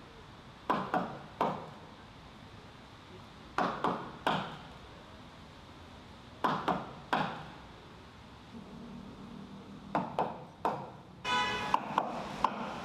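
Sharp knocks, each with a short ring, in groups of three about every three seconds. Near the end a sustained pitched tone sets in, with a few sharp pings over it.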